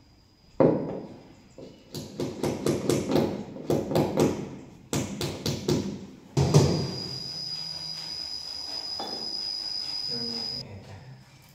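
Small hammer tapping nail-in cable clips into the wall to fix a fibre-optic drop cable: a quick run of taps, about four or five a second, with a louder blow near the start and another after about six seconds. After the tapping, a steady high-pitched cricket-like trill.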